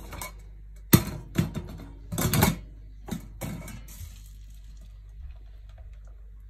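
Steel saucepan and spoon clanking against a stainless fine-mesh sieve and wire rack: a handful of sharp knocks in the first three and a half seconds, the loudest about a second in, then only faint sounds as the thick cooked berry purée is poured into the sieve to strain out the seeds.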